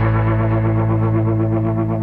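Background music: a held electronic chord with distortion and a fast wobble running through it.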